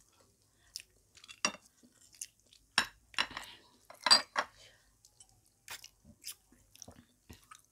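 Close-miked eating by hand: scattered wet clicks of chewing and lip smacks, with fingers working rice on glass plates. The loudest click comes about four seconds in.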